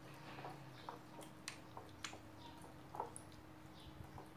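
Slime being kneaded and squeezed by hand in a glass bowl: faint, scattered wet squelches and little sharp clicks, the loudest about three seconds in.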